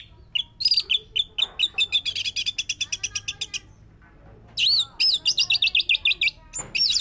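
Orange-headed thrush singing: fast runs of high, chattering notes in two long phrases with a short pause between them, and a third phrase starting near the end.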